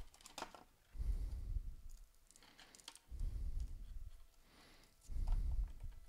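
Quiet clicking and crackling of brittle, charred electrical tape being picked and scraped off an old soldered knob-and-tube wire splice, with three dull low thumps of handling noise about two seconds apart.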